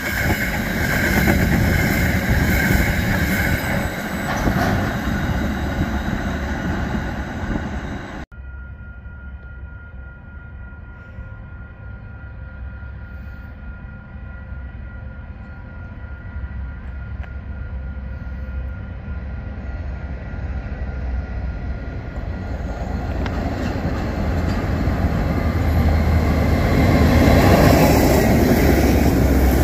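Container freight wagons rolling past close by with a steady high squeal, until an abrupt cut about eight seconds in. Then a diesel-electric freight locomotive approaches, its engine and wheel noise growing steadily louder until it passes close by near the end.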